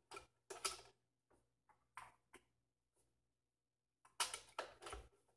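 Plastic parts of a disassembled Nespresso Vertuo Next coffee machine clicking and scraping as they are handled: a few short knocks early on, then a denser run of clicks and rubs about four seconds in.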